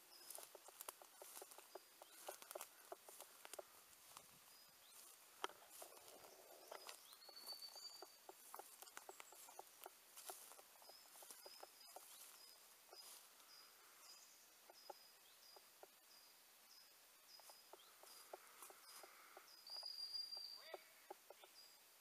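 Faint crackling and rustling of footsteps in dry fallen leaves, with short high chirps repeating throughout.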